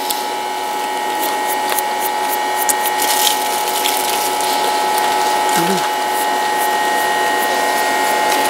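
A machine running steadily: a constant hum with a rattling, ratchet-like whir that holds level throughout.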